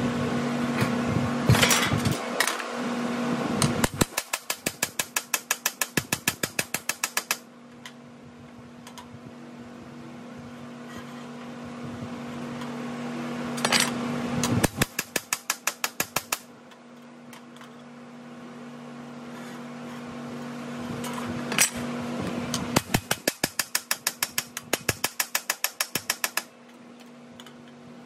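Rapid hammer blows on a sheet-metal flange held over a post dolly, in three runs of about eight blows a second, compression-stretching the flange back after it was shrunk too far. A steady hum runs underneath.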